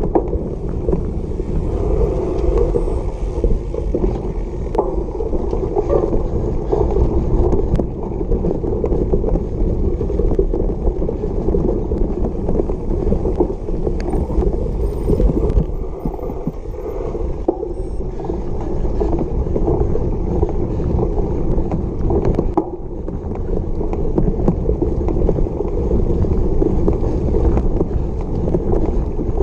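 Steady rumble and rattle of a cyclocross bike riding over bumpy grass, heard from a camera riding along with it, with a few sharp knocks from the rough ground.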